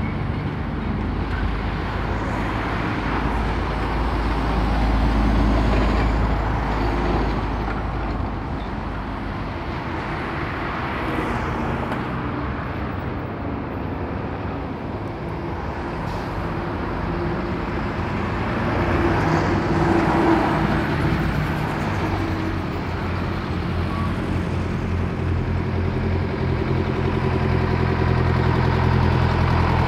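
Road traffic passing close by: trucks and cars driving past, with a steady rumble of tyres and engines. Near the end the diesel engine of an old Mercedes-Benz 608 D truck comes closer and grows louder.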